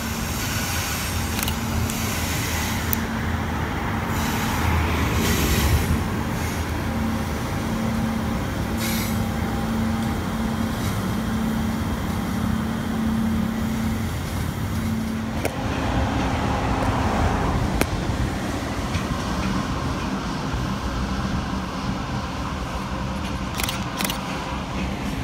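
Loaded coal train running past on the rails: a steady rumble of wagon wheels with a steady low hum. About two-thirds through, the sound changes as another electric-hauled coal train takes over.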